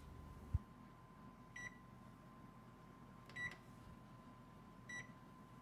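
Electric oven's keypad beeping three times, short identical beeps about a second and a half apart, as its buttons are pressed to set the temperature and timer. A single low thump comes about half a second in.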